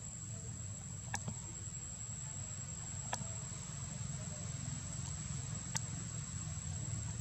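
Steady high-pitched insect drone with a low rumble underneath, broken by three short sharp clicks about one, three and six seconds in.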